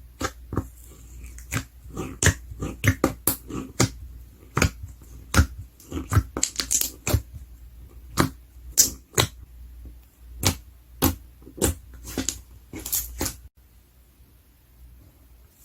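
Slime being squished and poked, giving sharp, irregular pops and clicks, a few a second, that stop shortly before the end.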